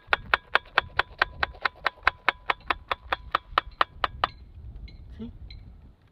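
A knife cutting down through a crisp-crusted handwa onto a stainless steel plate, making a fast, even tapping of about five strokes a second with a faint metallic ring. The tapping stops about four seconds in.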